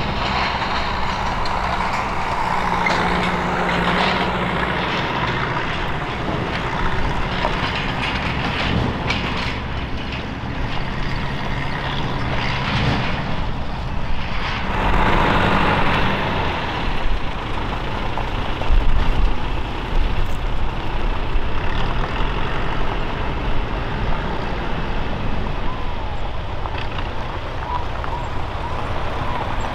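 Off-road vehicles driving slowly over a dusty dirt field: engines running with tyre and gravel noise, steady and loud.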